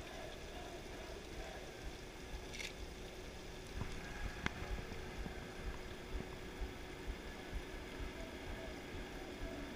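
Open-air background ambience with a steady hum and low rumble, a short hiss about two and a half seconds in and a single sharp click about four and a half seconds in.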